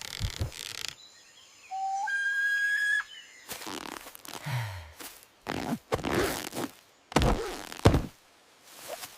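Cartoon sound effects: a short whistle-like tone that jumps up in pitch, then a string of quick whooshes and thuds.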